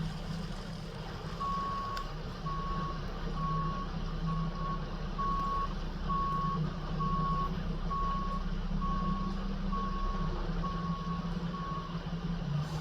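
Backup alarm of a Mack McNeilus front-loader garbage truck beeping as it reverses, a single-pitch beep repeating about once a second, a dozen times, over the steady low running of the truck's diesel engine.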